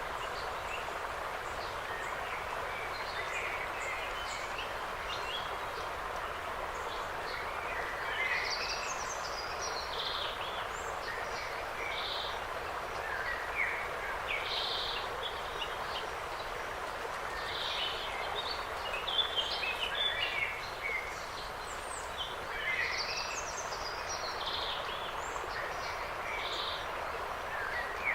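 Small birds chirping and singing in short, scattered phrases every few seconds over a steady rushing hiss of forest ambience.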